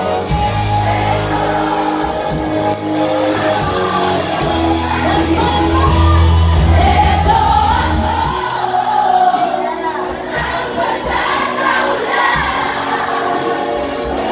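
Live band playing a song: women singing together over electric guitar and bass guitar. The heavy low bass notes drop away about eight seconds in while the singing carries on.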